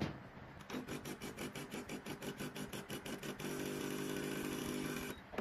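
HiBREW H10B coffee machine's pump starting an extraction: a rapid pulsing of about seven beats a second, then a steady hum that stops suddenly near the end. A click comes at the very start.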